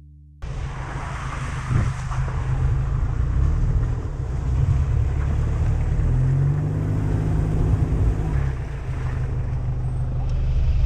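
An SUV driving along a muddy dirt track, heard from outside the vehicle: engine running with a steady deep rumble, and wind buffeting the microphone. It starts abruptly about half a second in.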